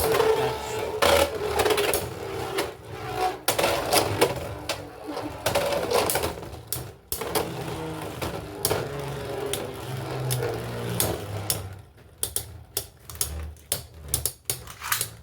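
Two Beyblade X spinning tops battling in a plastic stadium: repeated sharp clacks and clicks as they collide with each other and the stadium, with a spinning whir in between. The clashes come thick and fast in the last few seconds.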